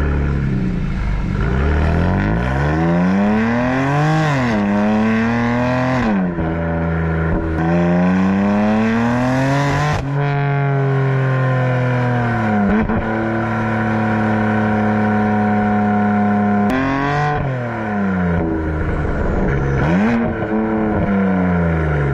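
BMW M4's twin-turbo straight-six accelerating hard through the gears: the engine note climbs and drops sharply at each upshift, three times in the first ten seconds. It then eases off with the pitch falling, holds steady, and rises and falls again near the end.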